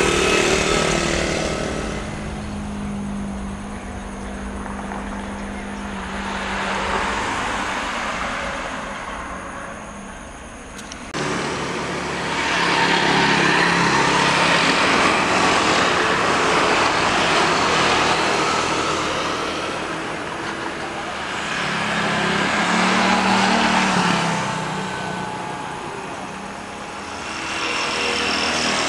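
Jet airliner engines at takeoff thrust, a loud roar that swells and fades as the aircraft roll past down the runway. About eleven seconds in, the sound cuts abruptly to another loud takeoff roar, which swells again near the end.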